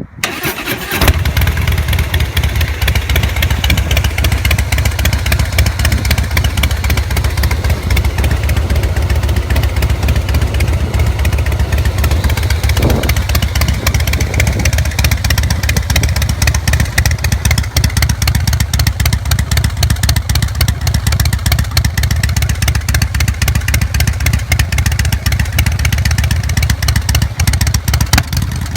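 2016 Harley-Davidson Softail Slim's air-cooled V-twin starting about a second in, then idling steadily through an aftermarket Arlen Ness MagnaFlow exhaust at an idle set to 900 rpm, with a crisp, deep pulsing note.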